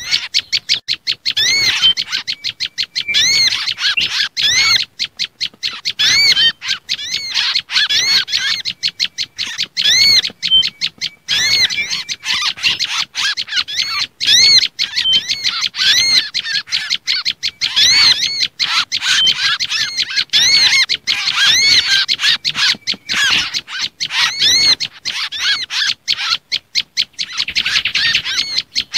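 Bird-lure recording of small songbirds calling: a dense run of rapid, high, arched chirps, several a second with brief gaps. The track is built on agitated prenjak lumut (tailorbird) calls mixed with kancilan bakau (mangrove whistler) and sogon calls, used to draw these birds in.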